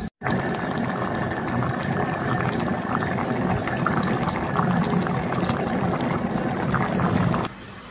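Eggplant cooking in a hot pan, bubbling and sizzling steadily with crackles, until it cuts off suddenly near the end.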